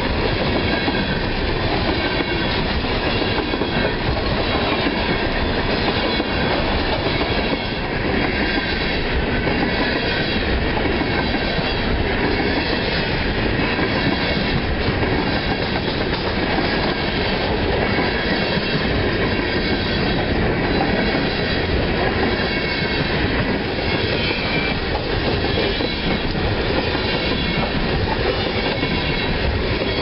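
Freight train's open-top hopper cars rolling past close by: a steady, loud run of steel wheels clattering over the rails.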